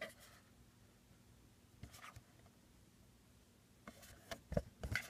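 A thick cardboard box set being handled. There is a soft tap at the start and a faint rustle about two seconds in, then a quick run of light knocks and scraping near the end as an inner case is slid out of the box.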